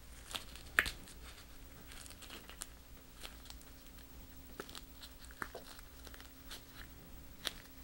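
Faint, scattered clicks and crinkles of hands in thin plastic gloves looping and bending twisted armature wire, with a sharper click about a second in and another near the end. A faint steady low hum runs underneath.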